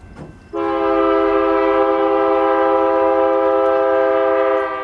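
Diesel locomotive's multi-chime air horn sounding one long blast, several notes at once, from an approaching train. It starts about half a second in and cuts off just before the end.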